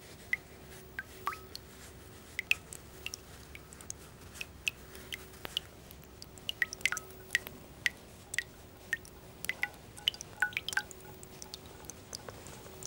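Water dripping: irregular drops, roughly two or three a second, many with a short plinking ring.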